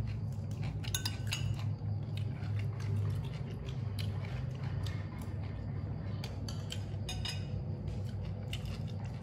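A metal spoon clinking against a ceramic plate of rice a few times as food is scooped, over a steady low hum.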